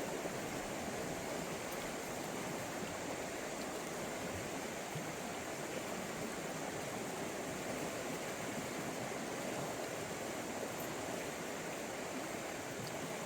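Steady rush of flowing river water from the Shenandoah River's current, unchanging throughout.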